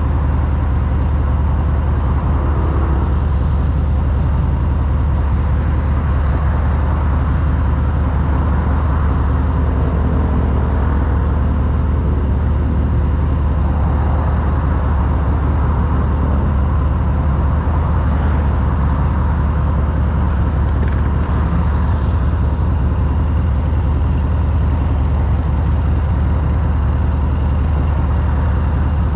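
Harley-Davidson motorcycle engine running steadily in traffic, a constant low-pitched sound with no revving or pauses.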